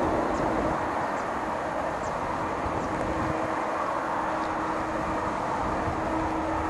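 Airbus A321-211 airliner's twin CFM56 jet engines running as it rolls along the runway: a steady, even rushing noise with a low steady hum.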